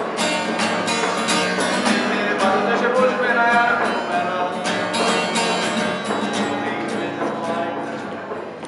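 Acoustic guitar strummed in a steady rhythm while a young man sings, the voice strongest in the first half. The playing gradually gets quieter toward the end.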